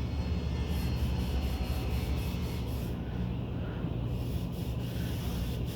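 A steady low droning hum with faint higher noise over it.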